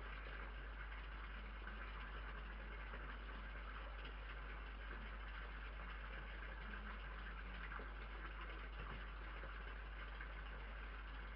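Steady low hum and hiss from a night-vision security camera's microphone, with a few faint ticks.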